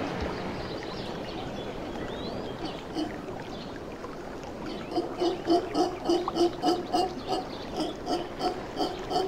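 Mantled howler monkeys calling. About five seconds in, a regular series of deep grunts starts, about three a second.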